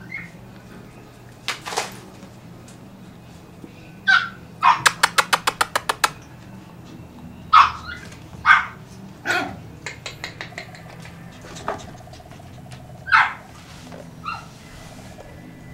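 Peekapoo puppies yipping and barking in play: short sharp yaps scattered through, with a fast run of about a dozen yaps about five seconds in.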